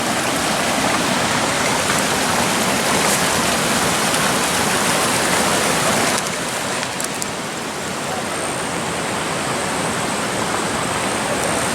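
River water rushing: a steady, even noise of flowing water, slightly quieter from about six seconds in.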